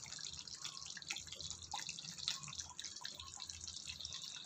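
Thick chicken gravy simmering in a pan: faint, irregular bubbling and popping.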